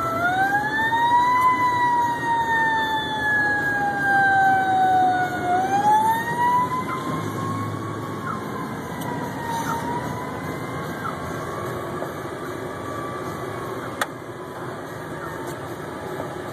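Fire engine siren wailing, its pitch rising quickly and then falling slowly in long sweeps before it fades out after about ten seconds. Underneath is a steady wash of rain and road noise, with a single sharp click near the end.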